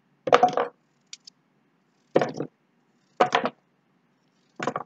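Kitchen knife slicing a raw peeled potato into thick slices by hand: four short bursts of knocks and clacks about a second apart.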